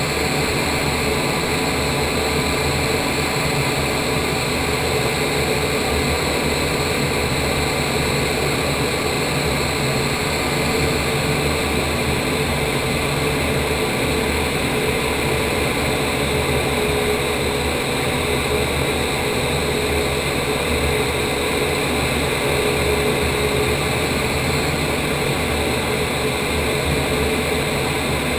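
Indoor vertical wind tunnel running, heard from inside the flight chamber: a loud, even rush of air from the tunnel's fans with a steady hum underneath.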